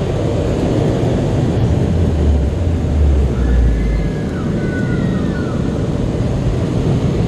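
Car wash dryer blowers running loud and steady, heard from inside the car as a rushing blast with a deep rumble. A few faint gliding squeals come and go about three and a half to five and a half seconds in.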